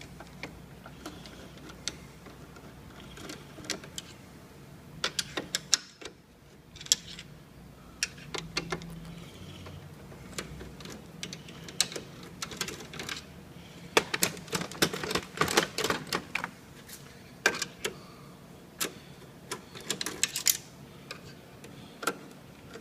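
Irregular clicks and rattles of screws being backed out and the metal and plastic parts of a copier's document feeder being handled, coming in clusters, busiest in the middle and again near the end.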